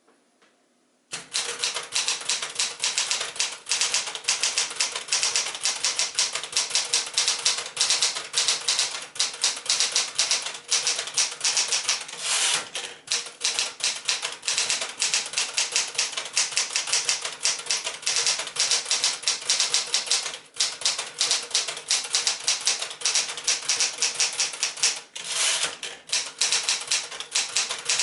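Fast, steady typing on a 1975 Smith-Corona Galaxie Twelve manual portable typewriter: a dense run of sharp key and typebar clicks. It starts about a second in and pauses briefly a few times.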